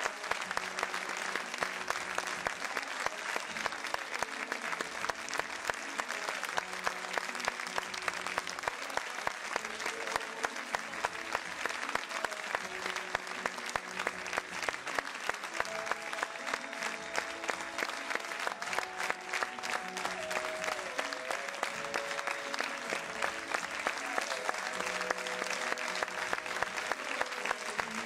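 Theatre audience applauding steadily, a dense patter of many hands clapping, while music with held melodic notes plays underneath.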